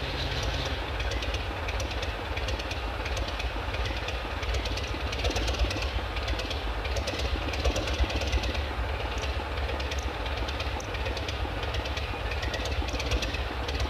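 British Rail Class 24 diesel locomotive's Sulzer engine running steadily at low power, with a dense clatter of small clanks and knocks from the locomotive and stock moving slowly at a station.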